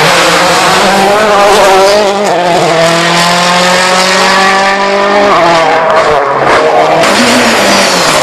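World Rally Car's turbocharged four-cylinder engine at full throttle, held at high revs for a few seconds, then the revs drop about five seconds in, followed by a few sharp cracks.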